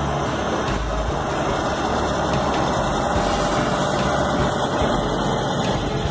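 Belarus (MTZ) 1025 tractor's diesel engine running steadily as the tractor drives across the field spreading fertiliser, mixed with irregular low rumbles of wind on the microphone.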